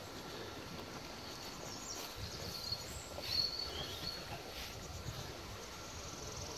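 A small songbird sings a few short, high chirping phrases about two to four seconds in, over a steady outdoor hiss and a low rumble.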